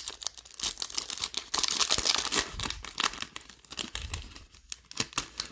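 Foil-lined baseball card pack wrapper being torn open and crinkled by hand. It is dense and crackly for the first few seconds, then thins to scattered crinkles.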